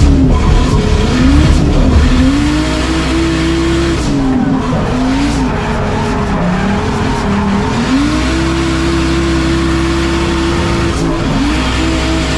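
BMW E30 drift car's engine heard from inside the cabin on a drift run. The revs swing up and down for the first several seconds, then hold high and steady for about three seconds, dip briefly near the end and climb back, with tyres squealing over the top.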